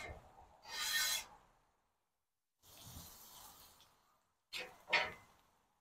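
Metal spatula scraping across the steel top of a flat-top griddle while turning asparagus, in separate strokes: a sharp one about a second in, a softer longer one midway, and two quick scrapes near the end.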